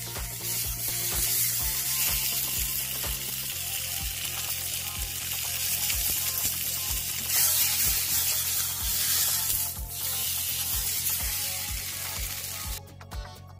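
A slice of ham sizzling in a square frying pan, cooking in the pan's leftover heat. The steady sizzle cuts off near the end.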